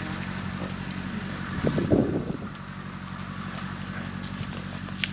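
Steady low drone of an engine running, with a brief louder sound about two seconds in.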